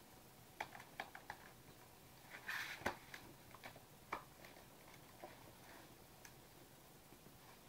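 Faint, irregular small clicks and taps over quiet room tone, with a short cluster of them about two and a half seconds in.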